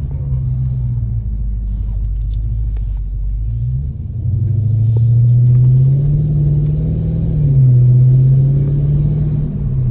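2020 Dodge Charger Scat Pack's 6.4-litre 392 Hemi V8 rumbling at low revs, then pulling harder from about four seconds in. Its pitch climbs, drops sharply at an upshift around seven and a half seconds, and steadies again, with a hiss over the middle of the pull.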